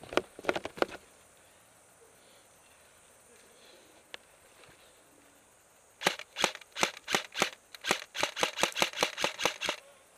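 Airsoft gun shots: a few quick shots at the start, then a rapid string of about eighteen sharp shots from about six seconds in, coming faster toward the end.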